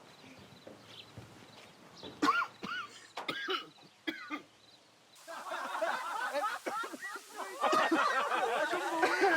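Smoker's cough: a few separate coughs and throat-clearing sounds, then from about five seconds in a longer, louder bout of coughing.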